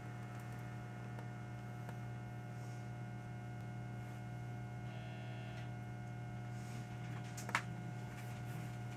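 Steady electrical hum inside a JR Central 373 series electric train car standing still, with no wheel or rail noise. A short tone sounds about five seconds in, and a sharp click comes about two seconds later.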